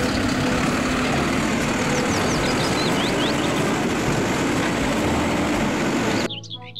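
Automated side-loader garbage truck running steadily while its hydraulic arm lifts a wheeled cart up to the hopper, with a few brief high squeaks in the middle; the sound cuts off suddenly shortly before the end.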